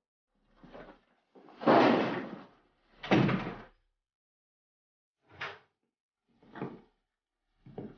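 Door being opened and shut: two loud thuds about a second and a half apart, then two lighter knocks.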